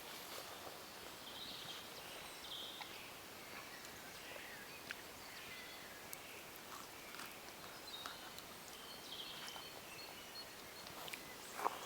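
Faint outdoor ambience with distant birds calling in short chirps, and scattered small clicks.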